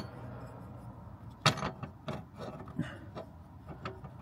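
Metal gas hob burner parts being fitted back together by hand: a few light clunks and clatters as the burner head and cap are set into place, the loudest about a second and a half in.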